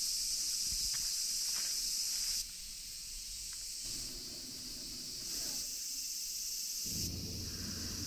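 A steady, high-pitched drone of insects in summer woodland. It drops in level about two and a half seconds in, and a low rumble comes in near the end.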